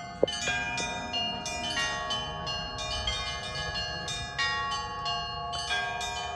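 Church bells ringing, several bells struck in quick succession so that their ringing tones overlap, with new strikes several times a second. A single sharp click sounds just after the start.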